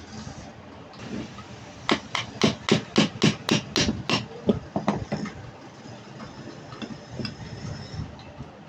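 A hammer striking a run of about a dozen quick blows, about four a second, lasting some three seconds.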